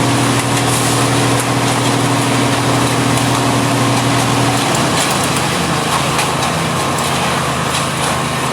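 A heavy engine running steadily close by over a dense wash of road noise; its low hum stops and shifts to a different engine note a little past halfway.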